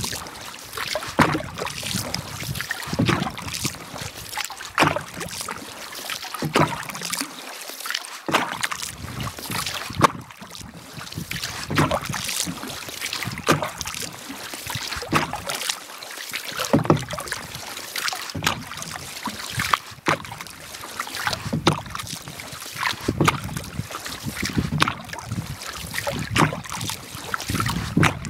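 Canoe paddle strokes in lake water: the blade dips and pulls through about every one and a half to two seconds, each stroke a splash followed by swirling and dripping water.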